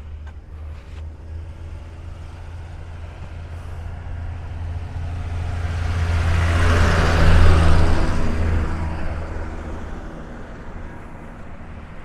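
A motor vehicle drives past. Its low engine hum and tyre noise build to their loudest a little past the middle, then fade away.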